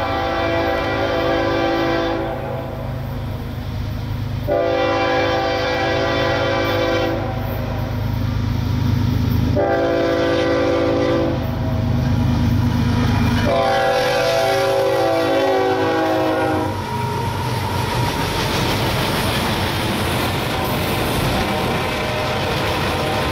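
Approaching CSX diesel locomotives sound their air horn in the grade-crossing pattern, long, long, short, long, over the low drone of their engines. About seventeen seconds in the horn stops and the loaded coal hopper cars roll past with a steady rumble and clatter of wheels on the rails.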